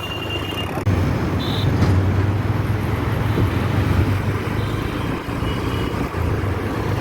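Road traffic noise with a steady low engine rumble, which gets louder abruptly about a second in.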